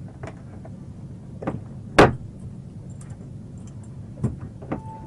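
Knocks and thumps against a car door from inside, with one loud bang about two seconds in, over the steady low hum of a running vehicle: a detainee trying to force her way out.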